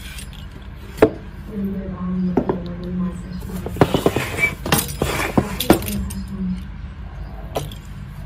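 Kitchen utensils and dishes clinking: single clinks about a second and two and a half seconds in, a quick run of clinks between about four and six seconds, and one more near the end.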